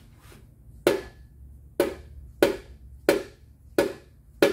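Six sharp hammer blows about two-thirds of a second apart, the first about a second in, knocking a stuck piston and connecting rod out of a Pontiac 350 V8 block.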